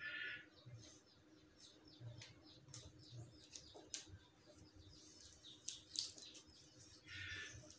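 Faint handling of glued plastic gift ribbon on a tiled floor: a brief rustle at the start and again near the end, with a few light clicks. A bird chirps in the background, a short note repeated about four times a second.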